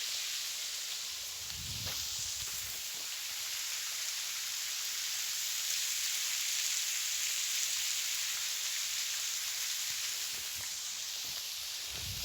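Waterfall rushing: a steady hiss of falling water that swells slightly midway, with a few low thumps near the start and again at the end.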